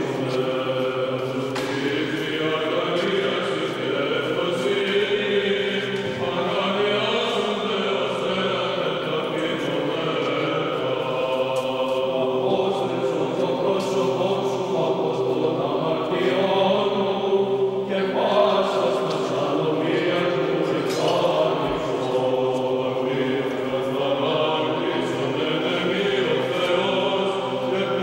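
Male choir singing unaccompanied Orthodox liturgical chant, a moving melody over a low note held steady beneath it.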